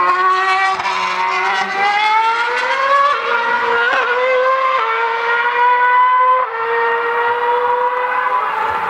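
A 2013 Formula One car's 2.4-litre V8 engine running at high revs as the car accelerates, its pitch rising over the first few seconds and then stepping abruptly a few times at the gear changes.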